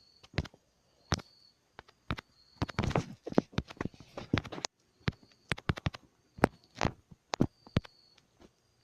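A series of sharp, irregular clicks and knocks, bunched most densely around the middle.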